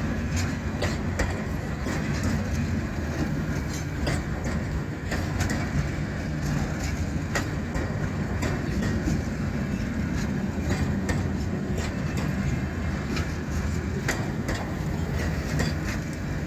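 Loaded freight train rolling past. Its wheels click over the rail joints at uneven intervals above a steady low rumble.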